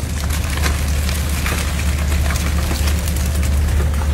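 A steady low engine drone, with scattered clicks and knocks as live crabs are handled in a netted plastic basket.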